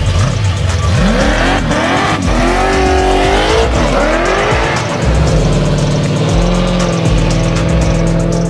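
A 5.3-litre LS V8 engine revving up and down several times, then held at a steady higher speed for the last few seconds, over music with a heavy bass beat.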